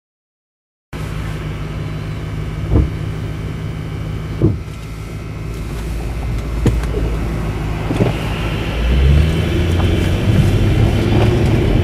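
Audi S8 heard from inside the cabin while driving: a steady engine note with road noise, rising in pitch and getting louder near the end as the car accelerates. Two sharp knocks come about three and four and a half seconds in.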